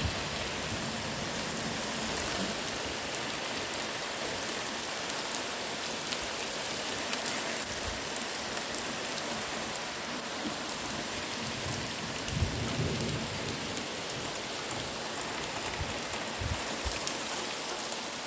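Heavy rain falling steadily in a thunderstorm, with sharp drop taps, and a few short low rumbles about twelve and sixteen seconds in.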